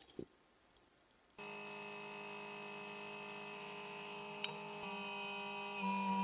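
Mini excavator running with a steady whine, coming in abruptly about a second and a half in after a brief knock; its tone shifts twice in the last two seconds as the machine works.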